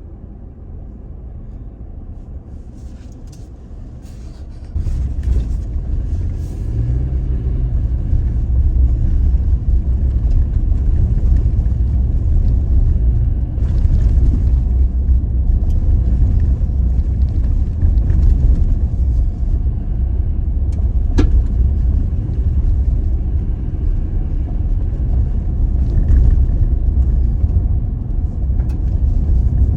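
Toyota Tacoma pickup driving along an unpaved, overgrown trail: a steady low rumble of engine and tyres that grows clearly louder about five seconds in.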